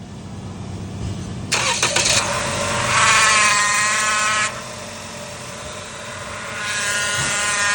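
Toyota Camry engine cranking and catching about one and a half seconds in, then running with a loud, steady high-pitched whine that drops away and comes back near the end. The whine is the engine noise the car is in for.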